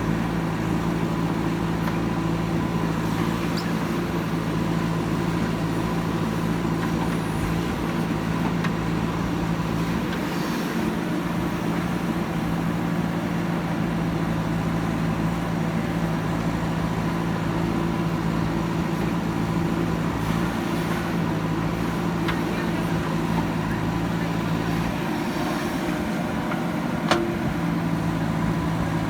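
Diesel engine of a JCB backhoe loader running at a steady speed while it works, with a single sharp knock near the end.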